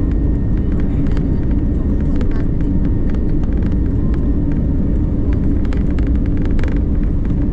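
Cabin noise of an Airbus A320neo on its takeoff roll: the engines at takeoff thrust and the wheels rolling on the runway make a loud, steady roar with a constant hum through it. Scattered light clicks and rattles sound over it.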